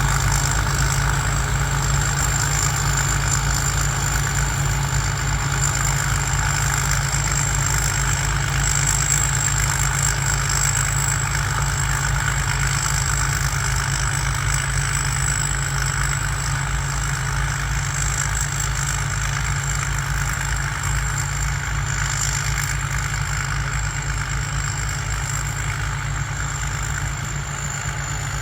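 Turbocharged diesel engine of a Sit Charoen Karn Chang rice combine harvester running steadily, with a steady high turbo whistle over the engine note.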